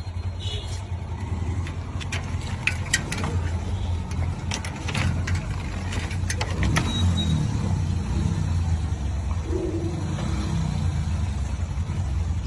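An engine running steadily with a low hum, with scattered clicks and knocks, mostly in the first half.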